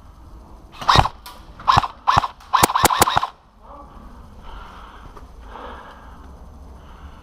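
Airsoft gun shots: three single shots about a second in, then a quick burst of about five.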